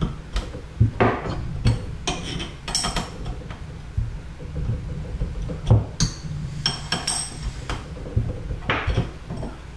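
Irregular light metallic clicks, knocks and scrapes from tightening the dishwasher water supply line's fitting onto the CPVC pipe under the sink, with handling noise; a few clinks ring briefly near the middle.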